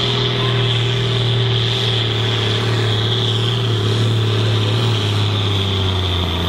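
Ford TW-25 tractor's diesel engine running hard under full load while pulling a weight-transfer sled, with a steady high whine above the engine note. The engine note drops about five seconds in as the load builds.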